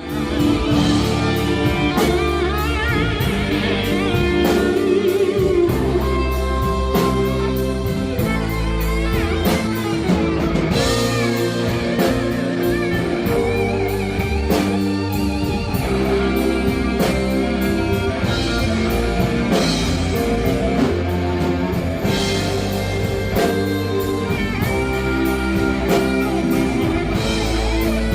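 Rock music with electric guitar over a drum kit, played at a steady beat with some bending guitar notes.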